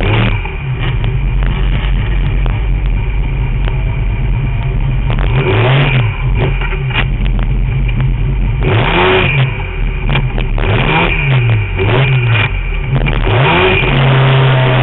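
Formula Mazda race car's rotary engine running at speed, its revs rising and falling several times through the middle, then holding steady near the end, over constant low wind and road rumble.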